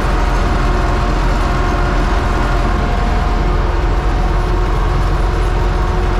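UTB Universal 650 tractor's four-cylinder diesel engine running steadily under load while pulling a plough.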